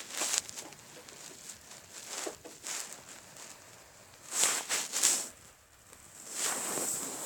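Rustling and scraping of hands moving small plastic toy figures, with a few soft ticks and two louder scrapes a little past halfway, then another near the end.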